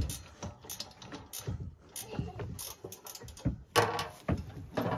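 Metal hand tools working: a ratchet wrench clicking and metal parts clanking in irregular knocks, the loudest a little before four seconds in.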